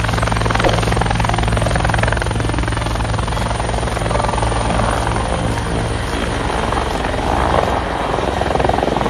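Helicopter running steadily, its rotor blades chopping rapidly over a low engine hum; the sound stops suddenly at the end.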